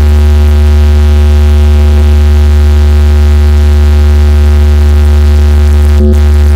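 A DJ speaker stack playing one sustained electronic tone at very high volume, with heavy deep bass and a steady buzzy pitch held unchanged for several seconds.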